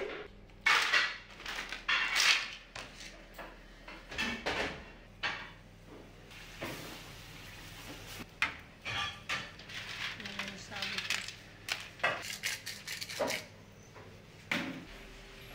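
Aluminium pans and shellfish clattering on a gas stove: clams and mussels rattling in the pans, with irregular sharp knocks of metal on metal.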